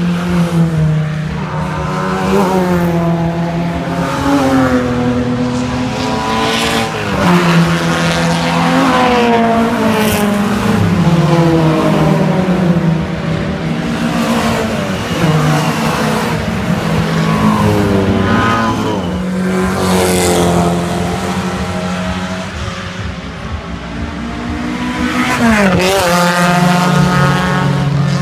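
Racing cars' engines passing one after another, their pitch climbing and dropping through gear changes, often with more than one car heard at once. Near the end one car sweeps past with a sharp drop in pitch.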